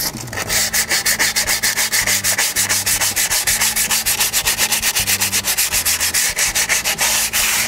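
Emery cloth rubbed fast back and forth over a drum brake shoe's lining, an even scratchy rasp of about six strokes a second. It takes the old surface off the lining so the shoe grips better.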